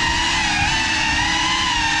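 Small FPV drone's motors and propellers whining steadily at a high pitch, the tone wavering slightly with throttle. The drone is a GEPRC Cinelog35 ducted cinewhoop on a 6S battery.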